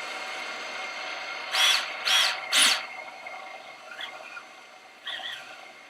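FPV racing quad's high-kV brushless motors spinning at idle after arming, with a steady whine, then three quick throttle blips in a row that rise and fall in pitch about two seconds in. Afterwards the motors settle lower, with two small blips, as the motor spin direction is checked.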